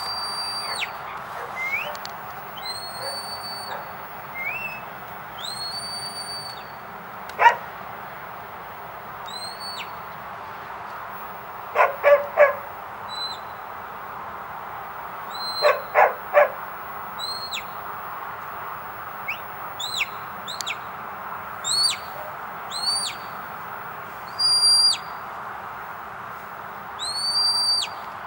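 Shepherd's whistle commands directing a border collie working sheep: a string of short high whistles, each a held note with a rising or falling flick at the ends, repeated throughout. A dog barks once about seven seconds in, then in two quick runs of three barks around twelve and sixteen seconds.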